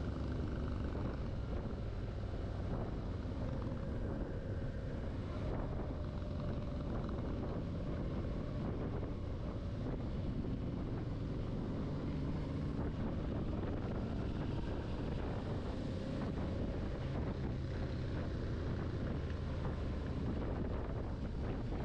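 Motorcycle under way at a steady pace, its engine running evenly under a constant rush of wind over the on-board microphone.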